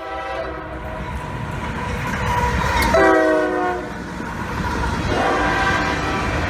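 Locomotive horn sounding a chord over the low rumble of a train, with its loudest blast about three seconds in and a weaker one near the end.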